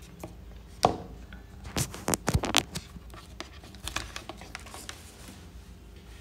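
A run of scratches and knocks, like something being handled close to the microphone: a sharp knock about a second in, a cluster of louder scrapes and knocks around two seconds in, then lighter ticks that die away.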